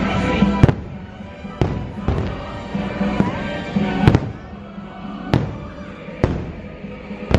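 Fireworks shells bursting in a string of about eight sharp bangs, spaced roughly a second apart, over the show's music soundtrack.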